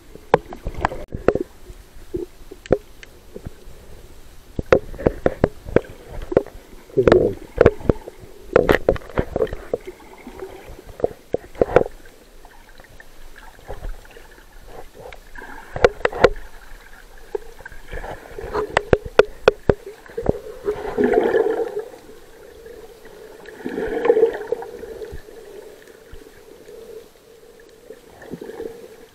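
Water gurgling and sloshing, heard muffled through a camera held underwater, with many scattered sharp clicks and knocks. Two louder, rumbling swells come in the last third.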